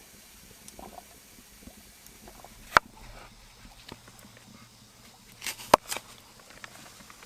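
Two sharp knocks or snaps about three seconds apart, the second with a few smaller knocks around it, over faint rustling and ticking.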